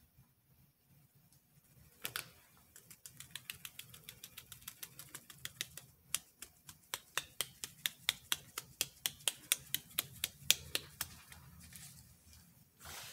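Small metal mesh strainer tapped to sift powder over the top of a freshly poured loaf of soap. A run of light, sharp clicks, about four or five a second, starts about two seconds in and stops a couple of seconds before the end.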